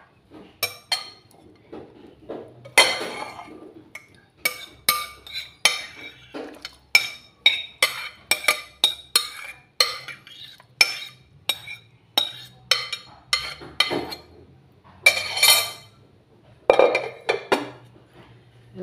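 Repeated sharp clinks of ceramic bowl and metal kitchenware against a stainless steel pot as a bowl of sliced onion mixture is tipped and scraped into it, about one to two clinks a second with a few louder knocks.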